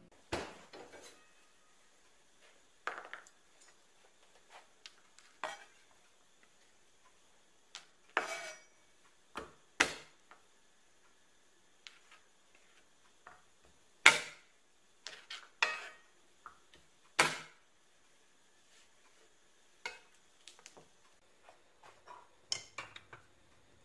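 Kitchen prep clatter: irregular knocks and clinks from utensils, a bamboo cutting board and a steel saucepan being handled and set down, about a dozen sharp hits in all, some with a short metallic ring.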